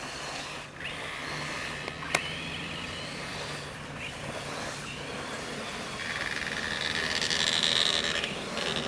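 Radio-controlled buggy's motor whining at high pitch as the car drives, growing loudest from about six to eight seconds in. A single sharp click comes about two seconds in.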